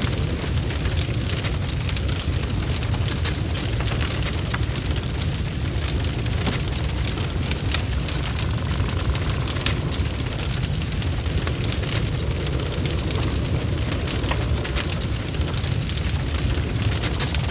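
Wood fire burning with a steady low roar and frequent irregular sharp crackles and pops.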